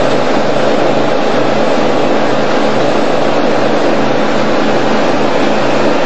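Boat engine running steadily under way, loud and continuous, with a low hum that pulses about three times a second under a steady rushing noise.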